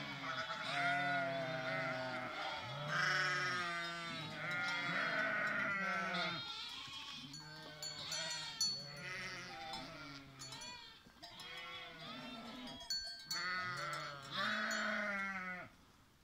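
Flock of Dalmatian Pramenka sheep and lambs bleating, many calls overlapping, some deep and some high-pitched. The calls are densest in the first half, thin out later, and die away near the end.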